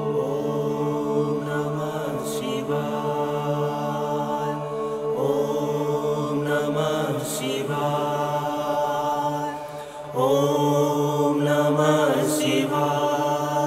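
Male voices chanting a Sanskrit mantra in long, held notes, phrase after phrase, with a short break about ten seconds in.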